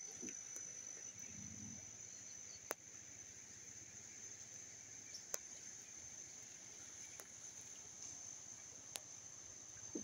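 Faint, steady, high-pitched insect chorus, with a few soft isolated ticks.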